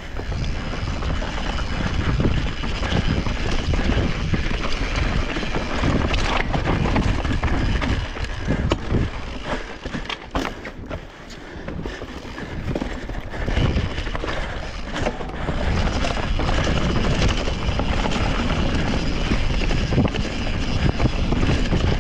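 Mountain bike riding fast down a rooty forest singletrack: continuous tyre and trail rumble, with the bike rattling and knocking over roots, easing off briefly about halfway through.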